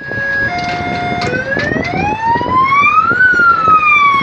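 Electronic vehicle siren. It opens with a few steady tones that change pitch about half a second and just over a second in, then sounds a slow wail that rises for about two seconds and falls away.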